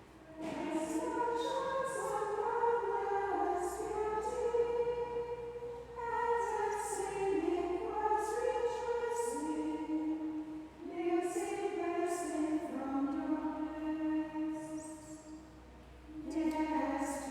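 Choir of nuns singing a liturgical chant on one melodic line, phrase by phrase with short pauses for breath between phrases.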